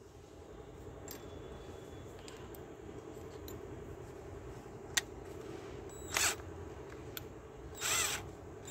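Faint handling noises as a drill bit is fitted into the chuck of a cordless drill, with a sharp click about five seconds in and two short bursts of noise near the end.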